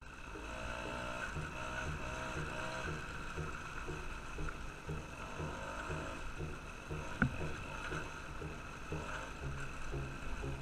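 Solo Mofa's small two-stroke engine running steadily under way, with a pulsing rhythm and a hiss of wind and tyres. There is one sharp knock about seven seconds in.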